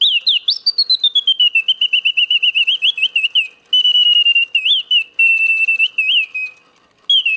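Vintage West German singing bird automaton alarm clock's mechanical bird song: a bellows-driven whistle warbling and trilling in quick chirps and pitch glides. It pauses briefly about seven seconds in and starts again.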